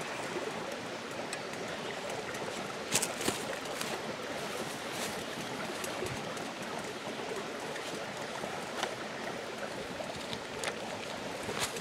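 A creek flowing steadily, with a few sharp clicks over it: two close together about three seconds in and a few more near the end.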